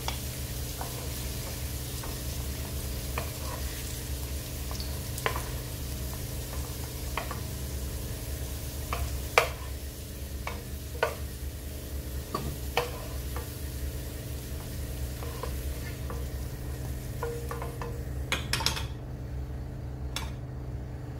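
Oil sizzling in a nonstick wok while a wooden spatula scoops out sautéed carrot and potato pieces, with scattered clicks and scrapes of the spatula against the pan. The sizzle drops away near the end.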